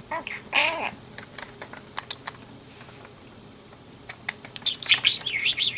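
Budgerigar warbling in short chirps, with scattered small clicks in between and a run of quick rising and falling chirps near the end.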